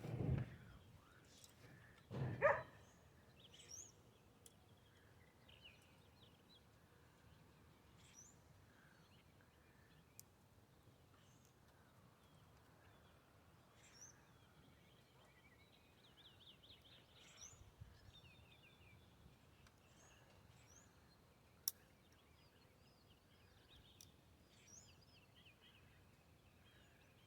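Faint songbird chirps and calls, with one fast trill about halfway through, over quiet outdoor background. There are two dull thumps in the first few seconds.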